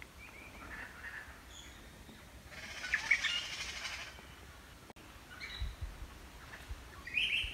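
High-pitched chirping animal calls: a loud cluster about three seconds in and another near the end, with a couple of soft low bumps in between.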